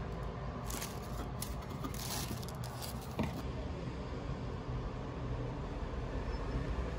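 Tissue paper rustling and crinkling as shoes are lifted out of a cardboard box, ending with a light knock about three seconds in, over a steady low background rumble.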